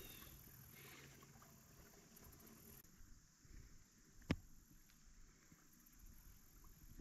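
Near silence: a faint low outdoor background hum, broken by one sharp knock a little over four seconds in.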